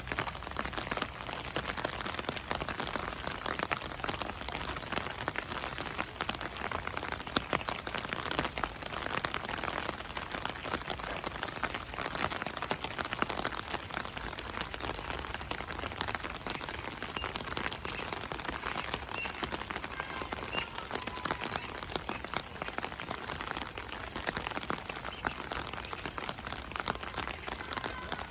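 Steady rain falling, a dense continuous patter of drops hitting surfaces.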